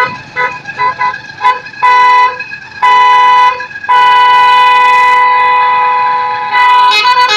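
Telolet bus horn, the musical horn of Indonesian buses, playing a run of short toots, then two held notes and one long note of nearly three seconds, then quick toots that change pitch near the end.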